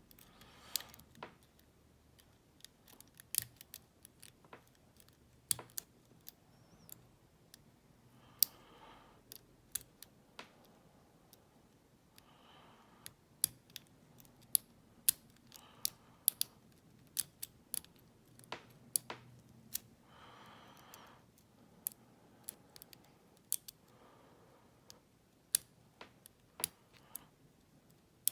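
A lock pick working the pins of a small Yale pin-tumbler cylinder that has spool pins. It makes scattered, irregular sharp clicks, with a few short scratchy stretches.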